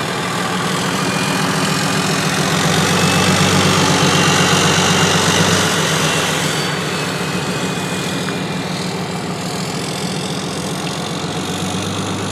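6.7 Cummins inline-six turbo diesel running steadily, swelling a little a few seconds in and then easing back.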